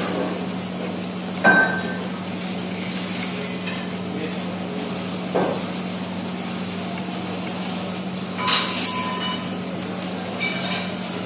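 Steady low hum of a running laboratory stability chamber, with a few sharp clicks and knocks over it, the loudest about a second and a half in and a longer, noisier one near nine seconds.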